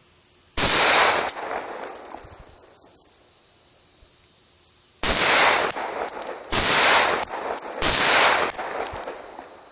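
.30-06 Remington 742 Woodsmaster semi-automatic rifle firing four shots: one about half a second in, then three more near the end, about a second and a half apart, each with a short echo.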